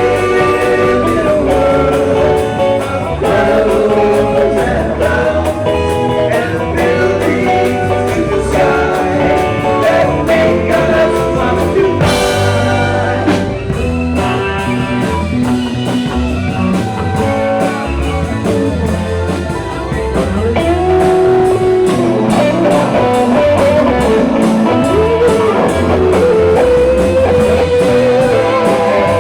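Rock band playing live: electric guitar, bass and drums with a singing voice, with a cymbal crash about twelve seconds in.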